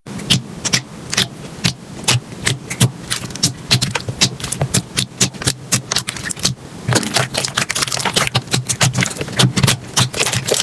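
Slime being squeezed and pressed by hand, giving irregular sharp crackles and pops, several a second.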